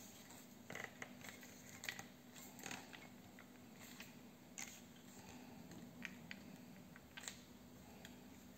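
Faint scattered clicks and light knocks from hands handling an antique double-barrelled hammer shotgun, over a low steady hum.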